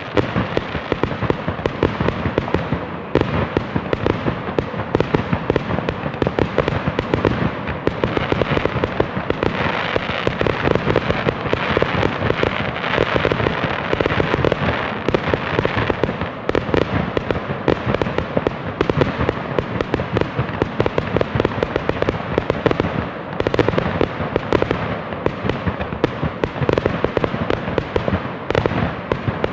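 Fireworks going off in a dense, continuous barrage of rapid crackling pops, without a pause.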